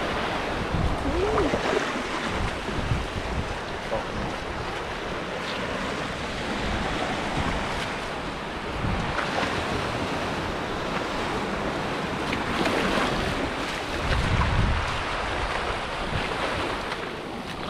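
Sea waves washing onto a sandy beach, with wind buffeting the microphone in low rumbles; one strong gust comes near the end.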